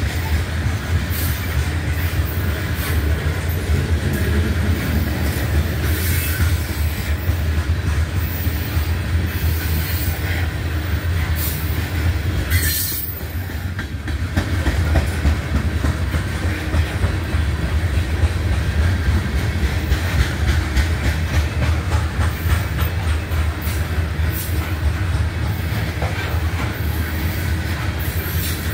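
BNSF coal train's open-top cars rolling steadily past a grade crossing: a continuous low rumble with the clicking of wheels over rail joints.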